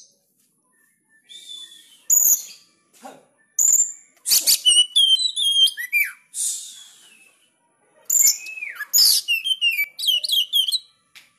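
Caged Oriental magpie-robin (kacer) singing in phrases: harsh rasping notes mixed with quick runs of high, sliding whistled notes, with short pauses between phrases.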